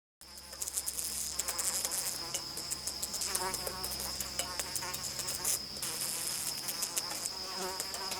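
Insect sound effect: a chorus of insects with a steady high-pitched whine and dense rapid clicking, plus wavering chirps lower down. It starts abruptly.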